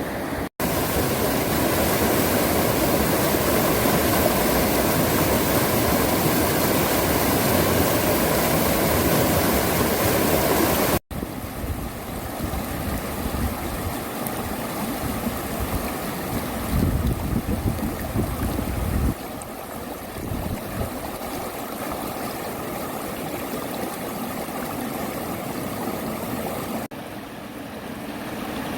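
Mountain valley stream rushing steadily, in three takes joined by abrupt cuts, the first take the loudest.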